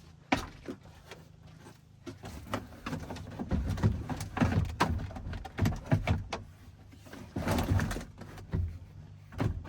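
A plastic interior door panel being handled and pressed into place on a pickup door: a run of knocks, clicks and scraping plastic creaks, busier from about three and a half seconds in.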